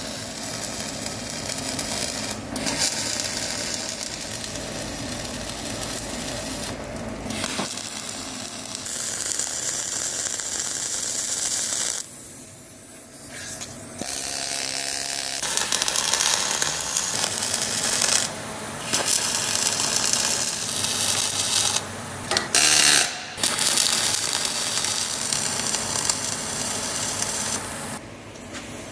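MIG welding arc crackling as weld beads are run on a steel bar, stopping and restarting a few times between runs.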